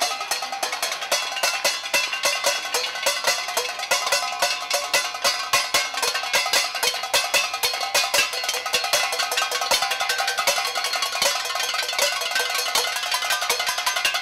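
A set of stainless steel pots struck with sticks as tuned percussion, played fast: a dense, rapid stream of bright metallic clinks with ringing pitches.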